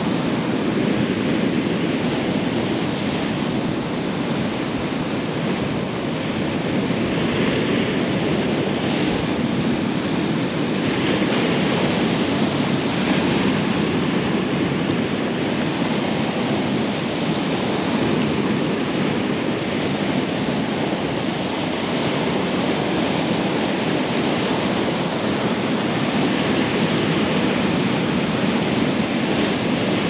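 Sea waves breaking and washing over a rocky shore: a steady wash of surf that swells and eases only slightly.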